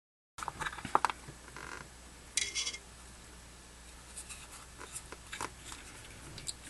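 Hands working a Zippo lighter insert: scattered light clicks and taps, with a short scratchy rub about two and a half seconds in.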